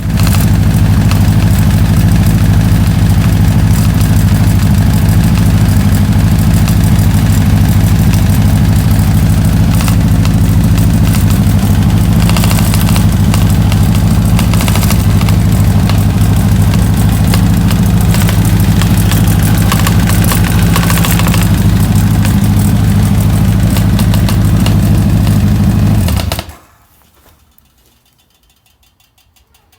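Engine idling steadily with a ticking noise, then switched off about 26 seconds in; a few faint, evenly spaced clicks follow.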